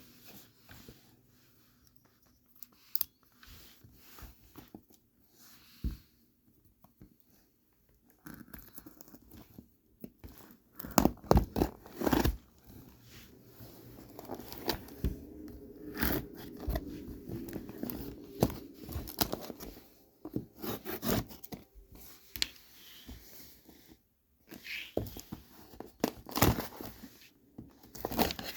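Packaging being torn open and crinkled by hand, in irregular bursts of tearing, rustling and small handling clicks, with quiet gaps between.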